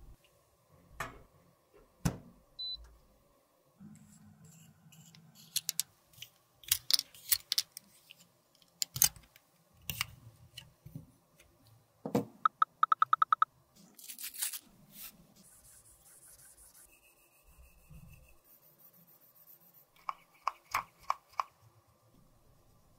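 Irregular small clicks, taps and scrapes of makeup tools, glass and plastic lipstick containers being handled, with a quick run of about ten clicks a little past halfway.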